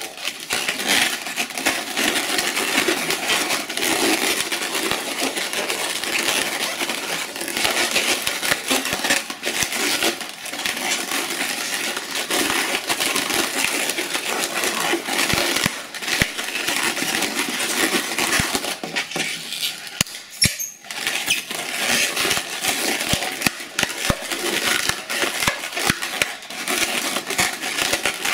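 Latex twisting balloons squeaking and rubbing against each other as a long yellow balloon is wrapped and twisted around inflated balloons. The rubbery squeaks and crackles run continuously, with a brief lull about two-thirds of the way through.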